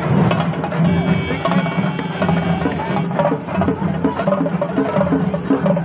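A group of chenda drums played together with sticks in a fast, steady, loud beat.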